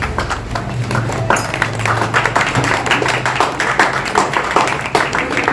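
A small group of people applauding: scattered hand claps that thicken into steady clapping after about a second.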